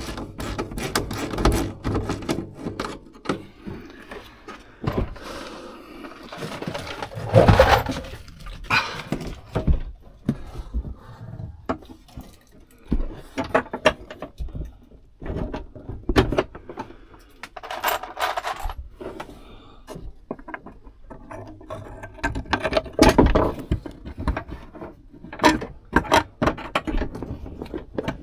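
Handling and fitting work: irregular clicks, knocks and scrapes of panels, parts and tools, with louder knocks about seven seconds in and again around twenty-three seconds.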